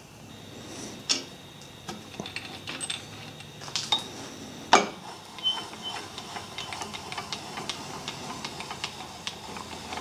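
Metal clinks and knocks from the parts of a homemade radial drill being handled. A few sharp knocks, the loudest about five seconds in, are followed by short bits of metallic ringing.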